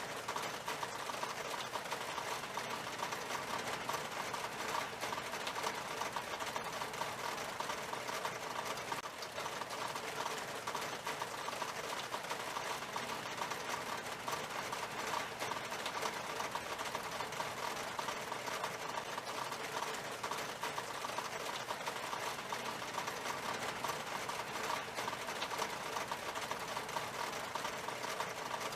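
Rain falling on a glass window pane: a steady, dense spatter of drops ticking on the glass.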